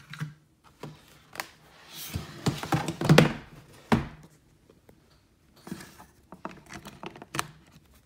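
A plastic gaming laptop being handled and turned over on a desk: sliding and rubbing against the surface, scattered knocks, and a solid thunk about four seconds in as it is set down, then a few light clicks.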